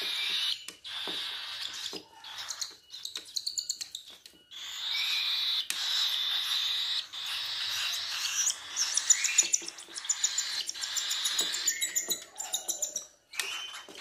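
Cockatiel chicks about 25 days old giving raspy begging calls while being hand-fed from a syringe. The calls come in runs of fast, even pulses broken by short pauses.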